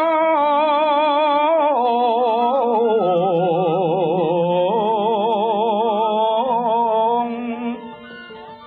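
Javanese wayang suluk sung by a dalang: one long held note with a wide, wavering vibrato that slides down and climbs back up. It fades out about seven seconds in, leaving quiet instrumental accompaniment. It is heard through a small transistor radio.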